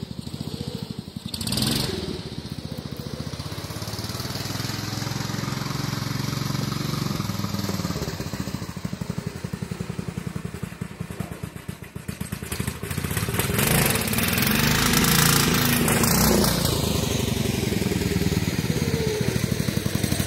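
Craftsman riding lawn mower engine running hard as the mower drives past, growing loudest about two-thirds of the way through and then dropping in pitch as it moves away.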